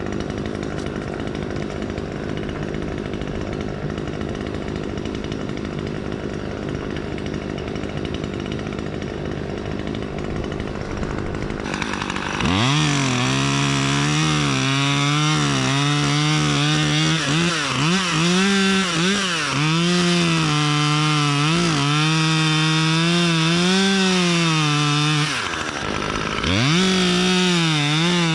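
A steady engine hum, then about twelve seconds in a chainsaw revs up and cuts wood, its pitch repeatedly dipping and recovering under load. It eases off briefly near the end, then revs again.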